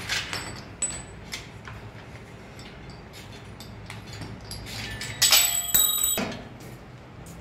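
A few light metallic clicks, then a cluster of ringing metal clinks and clangs about five seconds in, from the cable and pulley hardware of a multi-station home gym as the cable is threaded through its pulleys.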